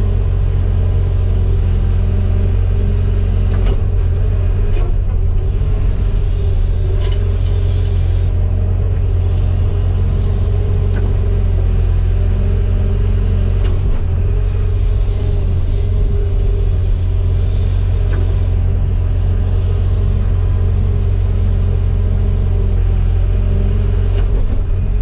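Cat 313FL excavator's diesel engine running steadily while digging a ditch, a constant low drone.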